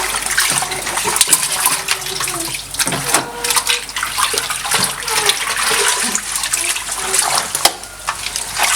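Water splashing and dripping in a twin-tub washing machine as soaked trousers are handled and moved into the spin tub, in irregular splashes with no steady rhythm.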